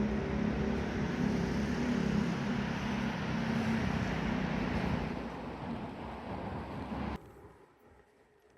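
Street traffic noise with a steady low engine hum, fading somewhat and then cutting off suddenly about seven seconds in.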